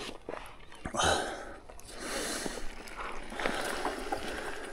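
Mountain bike rolling down a dirt trail: a rushing noise of tyres over dirt and rock, with scattered clicks and knocks and a louder surge about a second in.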